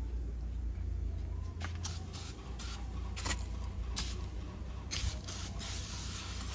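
Aerosol can of foaming engine cleaner sprayed onto a tractor engine: a few short hisses, then a longer spray near the end, over a steady low rumble.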